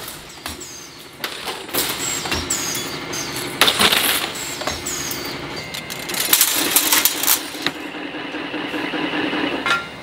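Band sawmill blade cut-to-length machine feeding the toothed steel blade strip through its rollers: a steady motor hum with repeated metallic clicks and rattles, some with a short high ring.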